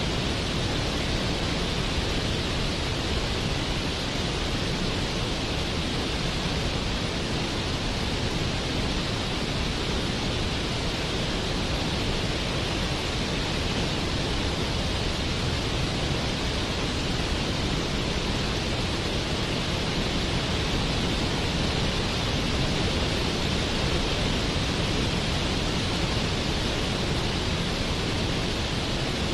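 Waterfall: a steady, unbroken rush of falling water, full of low rumble with a hissing top.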